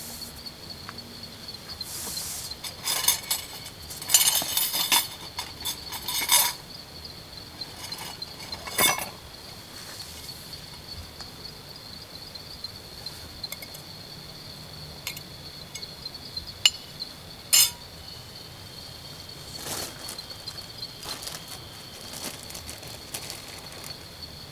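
A steady high insect chirring, with clusters of clinking and rattling from camp cookware and utensils about three to six seconds in, a short clatter near nine seconds and a sharp clink near eighteen seconds.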